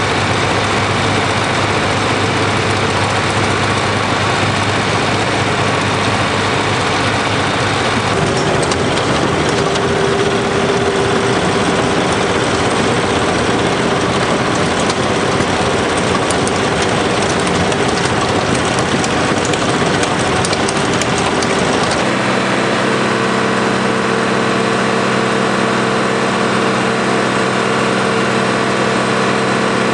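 Penta TMR feed mixer running while it unloads feed through its hydraulic-driven discharge conveyor: a steady machine drone with a hum, whose pitch and tone change abruptly about eight seconds in and again about two-thirds of the way through.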